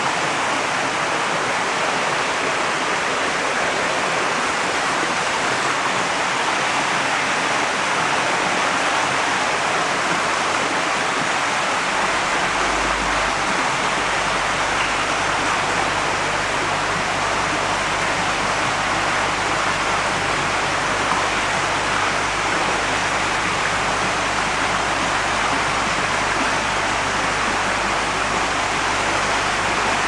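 Water pouring and splashing into crowded koi holding tanks, a loud, steady rushing hiss. A low rumble joins about twelve seconds in.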